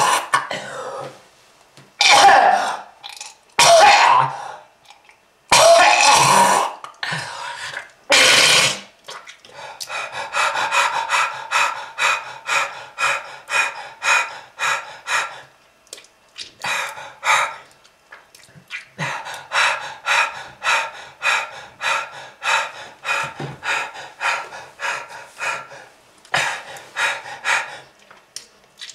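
Harsh, hacking coughing: a loud cough about every two seconds at first, then a long fit of short, rapid coughs, several a second.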